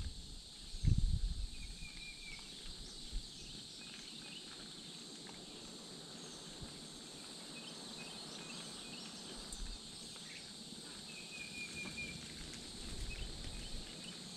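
Steady high-pitched evening insect chorus with a few short bird chirps, and a low thump about a second in.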